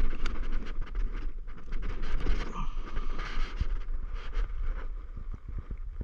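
Footsteps and rustling on dry corn stubble and loose dirt, an irregular crunching, over wind buffeting the microphone as a steady low rumble.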